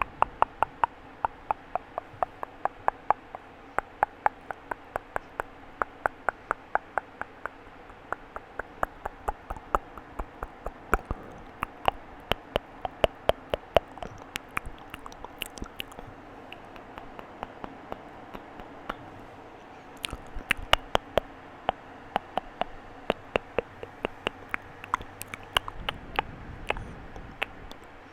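Close-miked wet mouth sounds: a long run of sharp tongue-and-lip clicks and pops, about three or four a second, thinning out midway and then picking up again.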